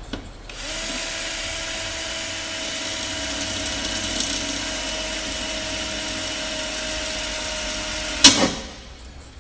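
A cordless drill runs at a steady speed, drilling into the car's sheet-metal door with a bit that is blunt. It starts about half a second in and stops after a sharp knock near the end.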